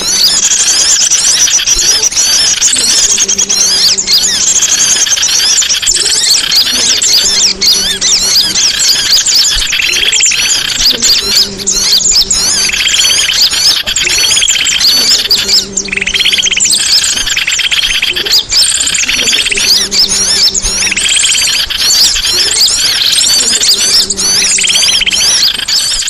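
Songbird singing loudly in a continuous, rapid song of fast-changing high notes, with a short low note repeating every second or two beneath it.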